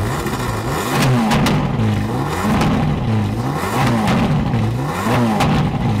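Ferrari 458 Italia's 4.5-litre V8 through a Capristo aftermarket exhaust, revved in a series of quick blips about once a second, each rising and falling in pitch.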